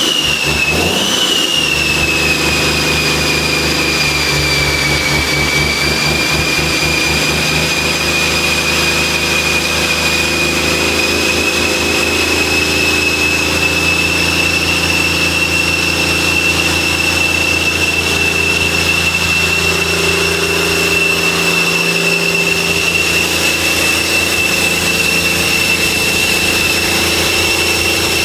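Cummins QSM11 inline-six diesel engine running on a test stand, with a steady high whine over the engine note. The pitch dips slightly in the first few seconds, then holds steady.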